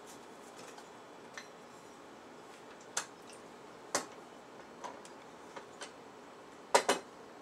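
A handful of short clicks and knocks as the metal parts of a Panavise are handled and fitted together, coming about a second apart, with a louder double knock near the end.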